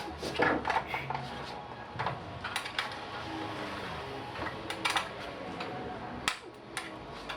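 Irregular light metallic clinks and clicks, like small metal parts or tools being handled.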